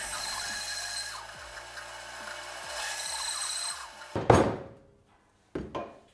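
Bandsaw cutting slots into a hard Osage orange block: a steady high-pitched cutting noise, easing off and then rising again for a second cut. A little after four seconds there is one sharp knock, and a couple of lighter knocks near the end.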